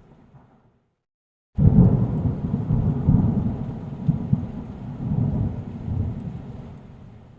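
Thunder: the tail of one rumble dies away into silence, then a sudden clap about a second and a half in rolls on for several seconds and slowly fades out near the end.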